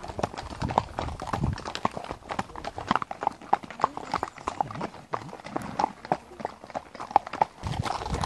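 Hooves of several horses clip-clopping at a walk on a paved lane: a steady, uneven stream of sharp clops from the overlapping footfalls.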